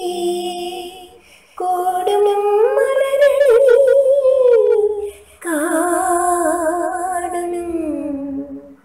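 A woman singing a Malayalam children's poem slowly, in three long drawn-out phrases with wavering held notes.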